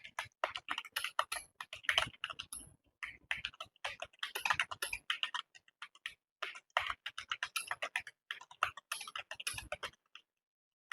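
Fast touch-typing on a computer keyboard: keystrokes clicking in quick runs with brief pauses between them, stopping about a second before the end.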